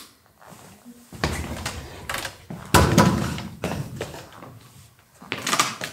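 A chair scraped and bumped on the stage floor as a person sits down on it: a few rough scrapes and knocks, the loudest about three seconds in, with another bump near the end.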